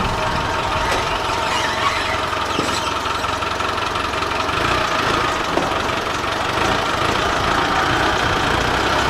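Engine of a lifted off-road 4x4 running steadily at low revs as it drives slowly down a trailer's ramps, getting a little louder near the end.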